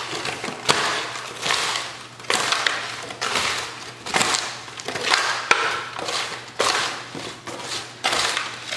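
Sliced apples tossed by hand in a disposable aluminium foil pan: the thin foil crinkles and the apple slices rustle and scrape, in uneven strokes about once a second.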